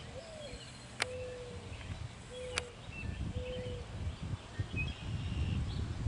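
Outdoor ambience with wind rumbling on the microphone, a dove cooing four low notes (the first swooping up and down, then three held notes) and faint small-bird chirps. Two sharp clicks about one and two and a half seconds in.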